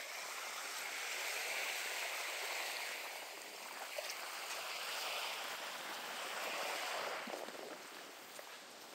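Steady outdoor hiss of wind and lagoon water. It swells for several seconds and eases about seven seconds in, with a few faint footfalls on the wooden boardwalk planks.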